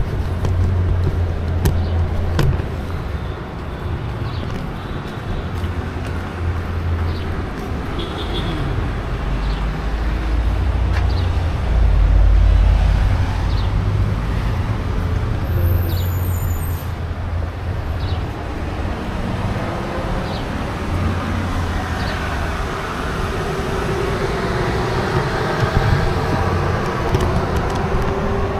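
City street traffic: cars and other vehicles running past with a steady low rumble.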